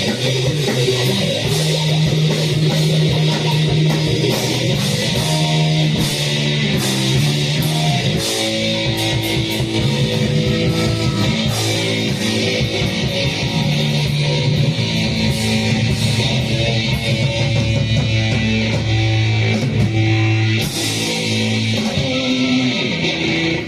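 Live band playing loud, heavily distorted guitar and bass riffs with chord changes every second or two, over drums with repeated cymbal crashes.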